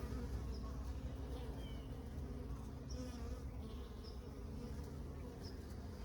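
Honeybees buzzing around an open hive, a steady low hum, with a few faint short high chirps over it.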